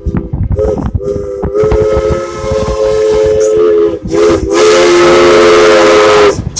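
Steam locomotive's chime whistle blowing a chord in several blasts: short toots in the first second, a long blast from about one and a half to four seconds, then after a brief break another long blast with a loud rush of steam hiss, cutting off just before the end.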